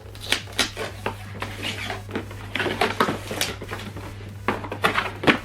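Cardboard and plastic product packaging being opened and handled: rustling, scraping and scattered sharp clicks and knocks.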